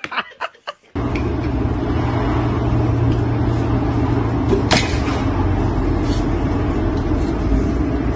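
A steady low rumble starts abruptly about a second in and holds even, with one sharp click just before the five-second mark.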